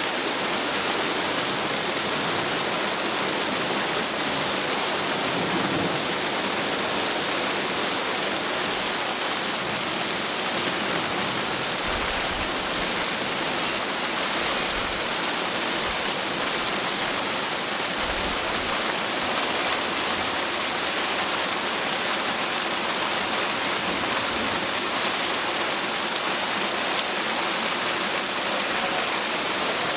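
Heavy rain downpour, a steady even hiss without a break. A few brief low rumbles come in around the middle.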